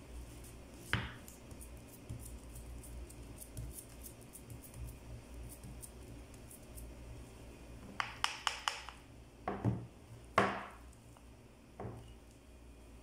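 Silicone spatula pressing and scraping semolina batter in a baking tray, with the tray being handled: a knock about a second in, a quick run of four or five taps around eight seconds, then a few louder knocks and scrapes, the loudest about ten seconds in.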